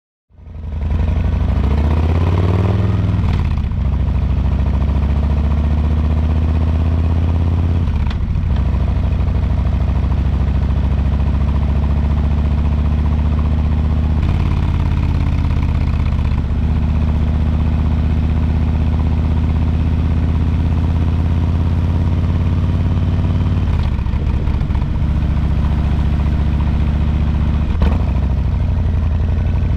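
Exhaust of a 2022 Harley-Davidson Low Rider S, a Milwaukee-Eight 117 V-twin, on the move. It fades in and rises in pitch as the bike accelerates over the first few seconds, then runs steadily with a few brief dips in the note.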